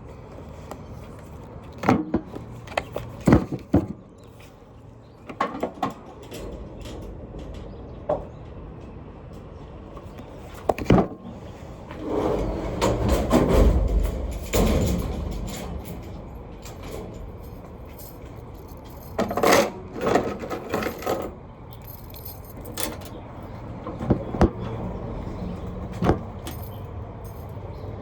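Objects being handled: a string of sharp clicks, knocks and light rattles, with a louder stretch of rustling and low rumble in the middle.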